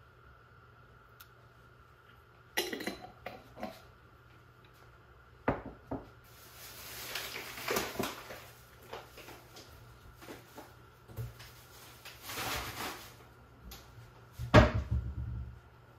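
Kitchen handling sounds: scattered clicks and knocks of utensils and containers, two stretches of rustling, and a louder knock with a low thud near the end.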